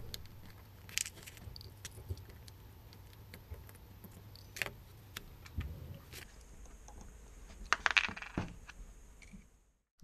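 Small metallic clicks and clinks as a Phillips screwdriver takes tiny screws and a plate off a Saragosa 10000 spinning-reel handle knob. A cluster of louder clicks comes about eight seconds in, over a low steady hum.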